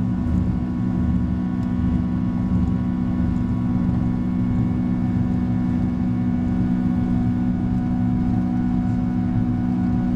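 Boeing 767-300 jet engines at take-off power during lift-off and initial climb, heard inside the cabin: steady engine noise with a strong low hum, several steady tones and a rumble underneath.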